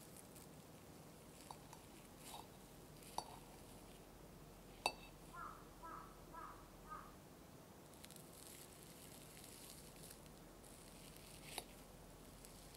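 Faint metal fork tapping and clinking on a ceramic plate as it cuts into a soft roll cake, with one sharp clink just under five seconds in. Right after it comes a quick run of four short squeaky calls, and there is one more light clink near the end.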